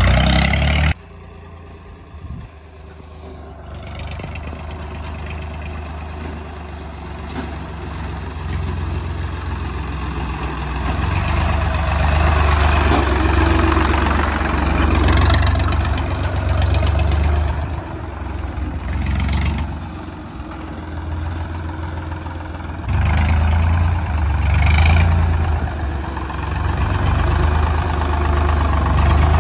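Swaraj 742 NXT tractor's diesel engine running with a steady low note. About a second in the level drops sharply, then builds back up, with a few short knocks over the engine.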